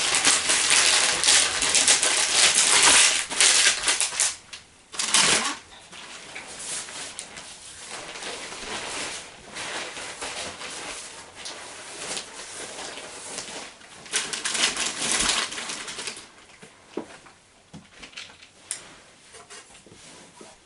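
Crinkling and rustling of sheets being crumpled and bundled up by hand off the floor. It is loudest in the first four seconds, goes on more softly for a while, and thins out to a few light taps near the end.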